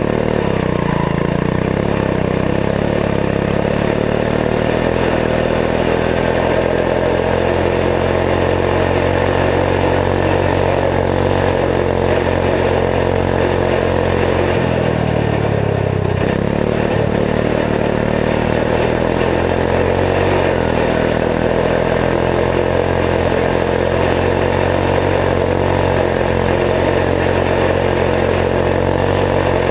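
Turbocharged 14 hp single-cylinder Kohler engine on a Gilson garden tractor running steadily while driving. About halfway through, the engine speed dips briefly and then climbs back up.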